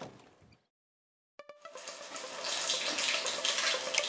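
Water running steadily from a tap, starting after about a second of dead silence and a short burst of sharp clicks.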